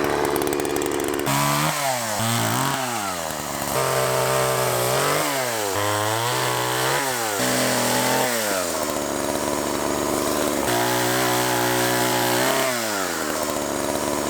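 Small two-stroke petrol chainsaw cutting fallen willow, the engine revving up and dropping back several times as the chain bites and frees, with a steadier stretch at high revs near the end.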